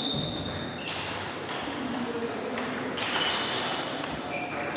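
Table tennis ball clicking sharply off the rackets and the table in a rally, several separate knocks each with a short high ring.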